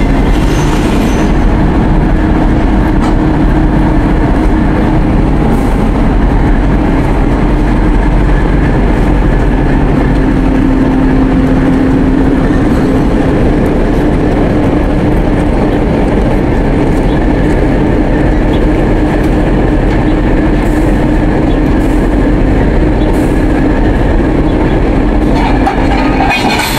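TEP70 diesel locomotive's 16-cylinder diesel engine running close by, a loud steady rumble with a constant hum over it.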